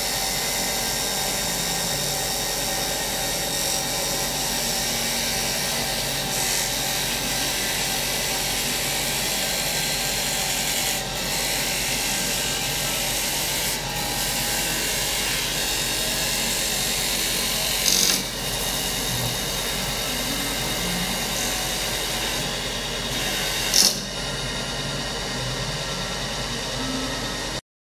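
Automatic double-axis, four-cutter CNC wood lathe turning baluster blanks: a steady machine whine from the spindles and cutters over the hiss of wood being cut away. There are two brief louder bursts, about two-thirds of the way through and near the end.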